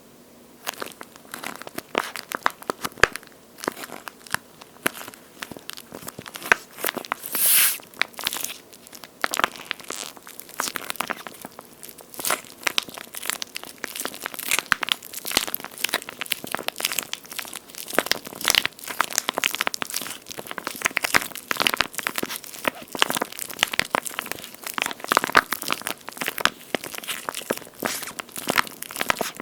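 Dense close-up crackling and crinkling as a water-filled, jelly-like toast-shaped squishy toy is handled and squeezed, with a louder swishing rustle about seven and a half seconds in.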